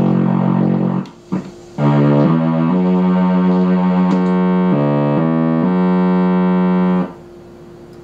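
ARP String Ensemble (Solina) string synthesizer playing held chords that change several times, with a short break about a second in; the playing stops about 7 seconds in. A faint steady hum from the output remains after the playing stops, the output noise the repairer has yet to track down.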